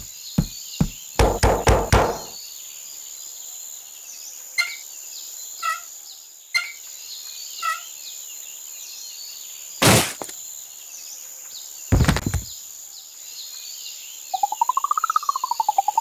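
Cartoon sound effects over a steady forest background: a quick run of knocks and thumps, then a few short chirps, two heavy thuds, and near the end a buzzing tone that rises and falls.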